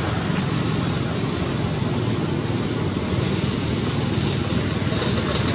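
Steady low rumbling noise with no clear pitch, going on without a break.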